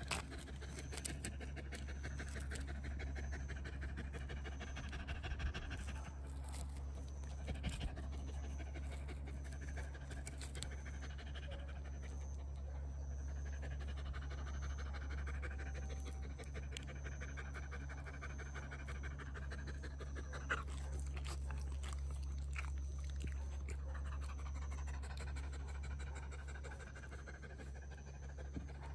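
A dog panting steadily, with repeated quick breaths.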